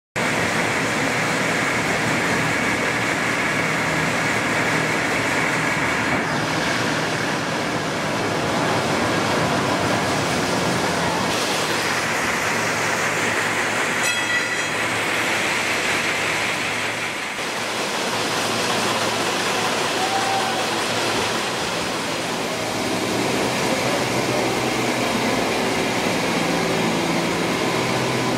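Jute mill drawing and spinning frames running: a loud, steady mechanical din of many machines at once, its character shifting every few seconds.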